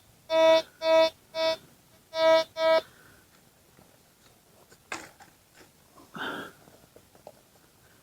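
Metal detector giving five short beeps of the same pitch in the first three seconds as its coil passes over a target. Then comes a click, and a short rustle about six seconds in.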